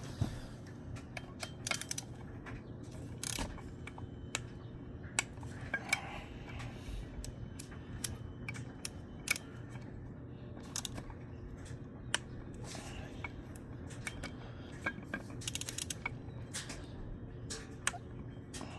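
Scattered sharp metallic clicks and taps from hand tools being worked on a supercharger pulley hub's bolts, at irregular intervals, over a steady low hum.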